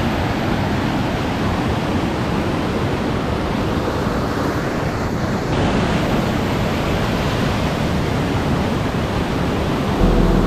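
Whitewater of a rocky stream cascade rushing over boulders: a loud, steady rush of water.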